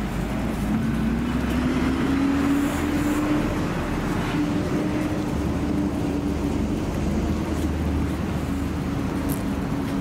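A motor vehicle's engine running, its pitch rising over the first few seconds and then holding steady over a low rumble.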